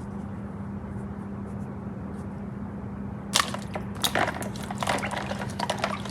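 A steady low hum, then from about three and a half seconds in a run of sharp clicks and crackles from toy pieces being handled.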